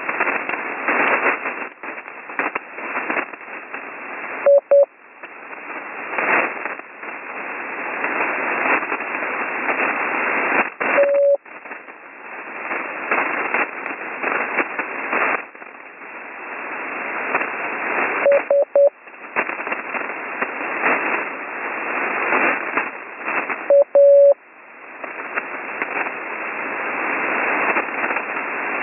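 Morse code practice letters received over HF radio: four single letters, each a short burst of a steady mid-pitched tone, spaced six seconds or so apart. Between them, loud receiver hiss and crackling static swell and fade under rough band conditions.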